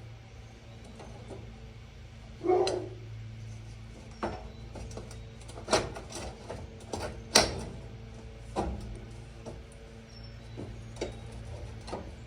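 Scattered knocks and clanks of metal stove parts being handled and cleaned, over a steady low hum; the loudest knock comes about halfway through.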